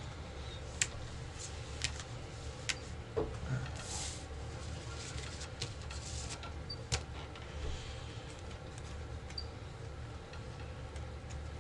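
Playing cards being laid and slid onto a table during a trick: scattered light taps and snaps with a short rustle about four seconds in, over a steady low hum.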